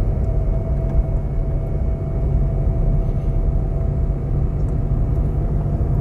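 Car driving along a sandy dirt road: a steady rumble of engine and tyres with a faint steady whine.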